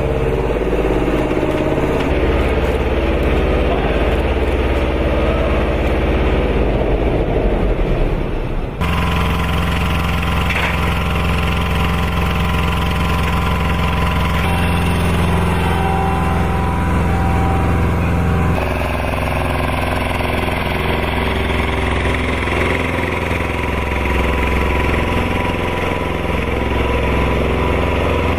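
An engine running steadily at an even speed. The tone changes abruptly about 9 seconds in and again about 19 seconds in, as one shot gives way to another.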